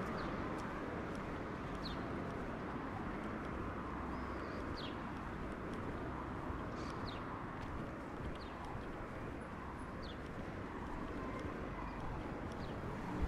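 City street ambience: a steady hum of distant traffic, with small birds giving short, high, falling chirps every second or so.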